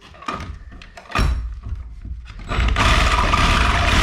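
Knocks and rattles, then about two and a half seconds in a reciprocating saw starts and runs steadily, cutting through the nail that holds an electrical box to the wall stud.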